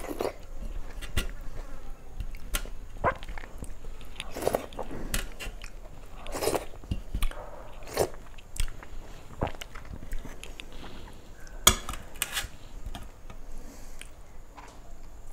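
A person chewing a mouthful of food eaten by hand, picked up close by a lapel microphone: irregular mouth clicks and smacks, with one sharper click a little before the end.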